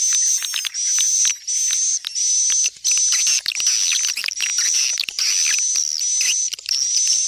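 Swiftlet calls: a dense, high-pitched twittering of rapid chirps over a steady high note, broken by short gaps. This is a swiftlet-farming lure call, played to draw swiftlets into a nesting house.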